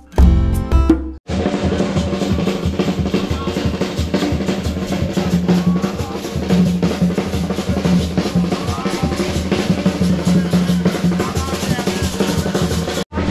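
Music: the tail of a guitar passage, then after a sudden cut about a second in, a fast, busy drum-heavy track with steady pitched tones underneath, briefly dropping out just before the end.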